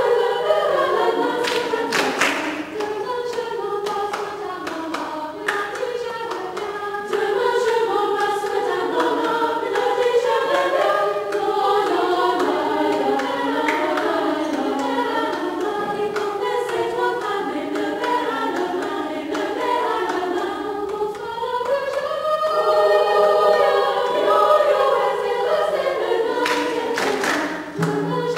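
Choral music: a choir singing, several voices in held, overlapping lines that rise and fall together.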